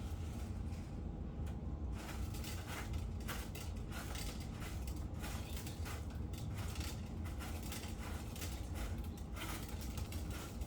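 Small plastic toys being handled, with scattered clicks and rattles over a steady low rumble.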